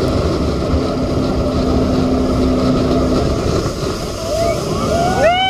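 Jet boat running at speed over open water: a steady rushing noise of engine and wind with a low hum. Near the end passengers start to scream.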